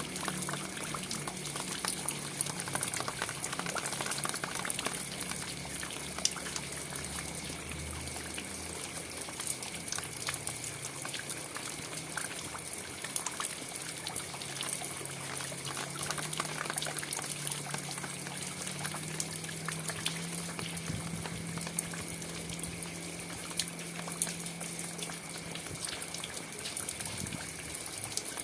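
Steady rain: a dense patter of drops over a constant rush of water.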